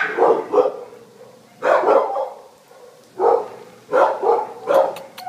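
A dog barking repeatedly, in short barks that come singly or two or three close together, with quiet gaps between them.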